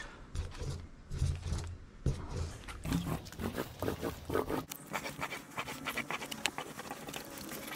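A small paint roller being worked over a surfboard's deck in wet marine polyurethane paint, giving an irregular sticky crackle with clicks, thicker in the second half.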